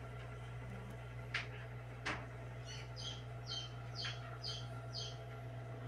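Newly hatched chick peeping inside an egg incubator: about six short, high peeps, roughly two a second, in the second half, after two sharp clicks.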